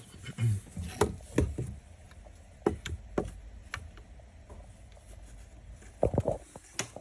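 Handling noise: irregular clicks and light knocks as an automotive test light and a small plastic tool are picked up, moved and set down against the trunk floor.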